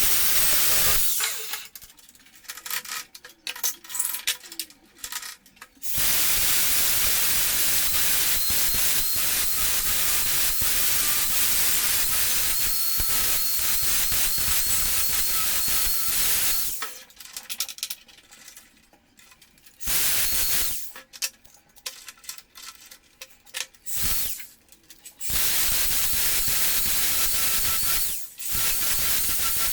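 Spray hissing in bursts: a long one of about ten seconds and several shorter ones, with a faint whistle riding on it. Short clicks and rattles fill the gaps between bursts.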